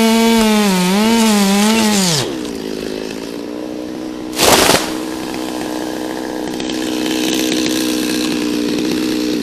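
Chainsaw cutting a pine trunk, its pitch wavering under load, then dropping after about two seconds to a steadier, lower running note. There is a brief loud burst of noise about four and a half seconds in, and the saw stops right at the end.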